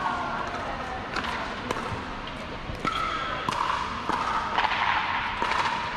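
Pickleball paddles striking the hard plastic ball: about half a dozen sharp pops, irregularly spaced.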